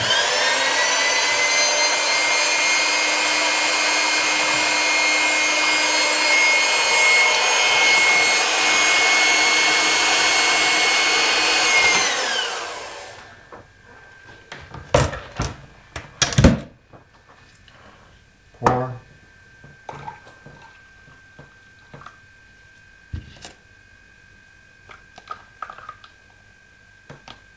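Electric hand mixer frothing milk in a glass measuring cup: the motor spins up, runs steadily for about twelve seconds, then winds down. Afterwards a few sharp clinks and knocks of a spoon and glass as the foam is spooned into the latte glass.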